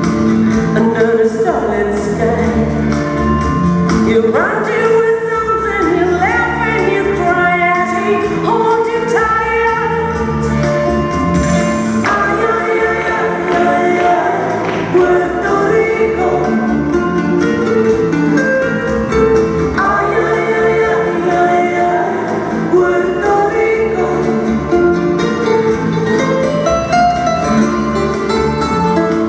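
A song with a singing voice over a full instrumental backing, playing without a break.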